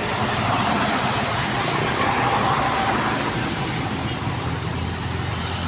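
Steady highway traffic: road vehicles passing, with no loud horn blast.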